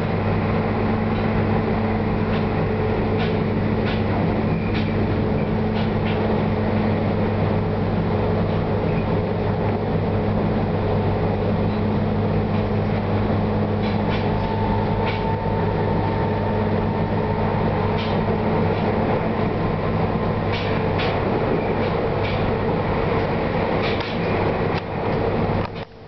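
Passenger train running, heard from inside the carriage: a steady rumbling drone with a low hum and scattered sharp clicks. The sound drops away briefly near the end.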